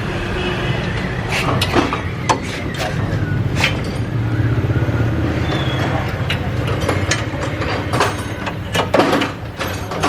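A steady low mechanical hum with scattered sharp metallic clicks and knocks of hand tools on car suspension parts, a few coming in quick succession near the end.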